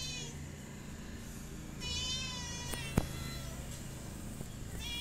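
A small kitten mewing in short, high-pitched, wavering calls, about two seconds in and again near the end. A single sharp tap sounds about three seconds in.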